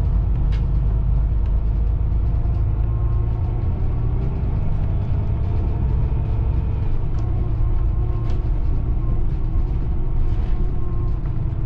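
Cabin noise inside a Caetano Levante coach on the move: a steady low rumble of engine and road.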